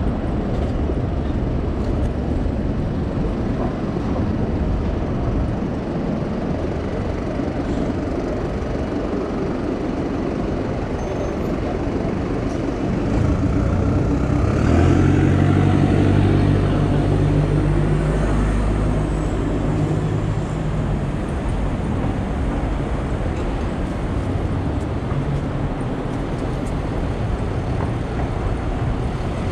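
City street traffic: a steady hum of passing vehicles. About halfway through, a large vehicle's engine runs close and loud for several seconds, then fades back into the traffic.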